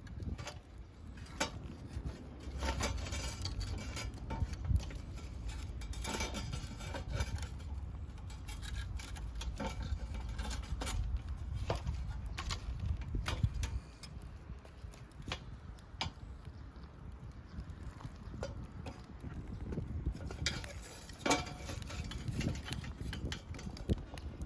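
Irregular clinks and knocks of metal camp cookware and gear being handled, with a low wind rumble on the microphone during the first half.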